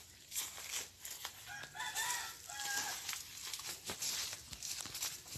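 A rooster crows once, starting about a second and a half in and lasting over a second, over the crunch and rustle of footsteps through dry fallen banana leaves.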